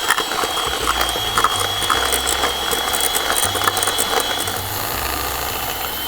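Electric mixer beating butter in a bowl, running steadily with a high motor whine and a rattling, clicking clatter.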